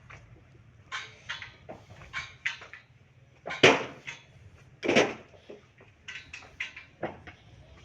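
A series of sharp knocks and clinks of hard objects striking, in quick clusters of two to four, with two louder strikes near the middle, consistent with construction work.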